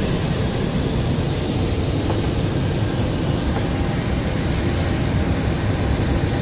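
Steady rush of airflow and engine noise heard on the flight deck of a Boeing 727 on final approach, with landing gear down and flaps at 30.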